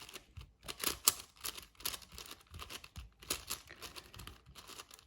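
Plastic 6x6 Rubik's cube being turned quickly through an algorithm: a rapid, irregular run of clicks and rattles as the layers snap round. The loudest snap comes about a second in.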